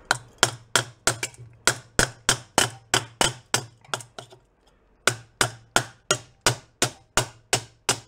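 Ball-peen hammer tapping on the inside of a Jawa motorcycle's metal headlight bucket, flattening a dent: even, sharp taps about three a second, pausing briefly a little past halfway. A low steady hum runs underneath.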